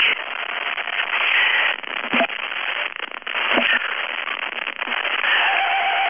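Weather radio receiver static: a loud, steady hiss with crackling and a few sharp pops.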